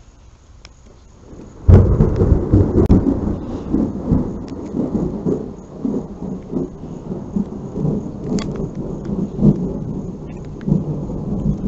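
Thunder from a close lightning strike: a sudden, very loud crack about two seconds in, then a long rolling rumble that swells and fades repeatedly for the rest of the time.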